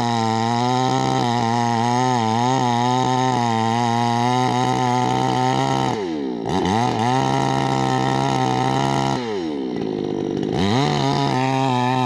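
Chainsaw engine running at high speed with its bar cutting into a tree trunk near the ground. The engine pitch drops sharply twice, about six seconds in and again near ten seconds, then climbs back up.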